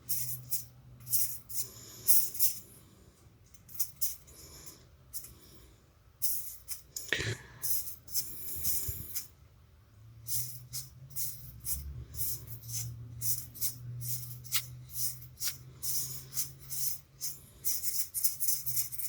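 Magic: The Gathering cards being flipped through and slid over one another by hand, a quick irregular run of short papery flicks.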